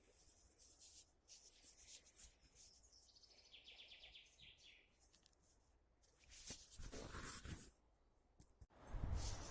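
Faint bird chirping in woodland, then rustling noise about six seconds in and again, louder, near the end, as of someone walking through forest litter.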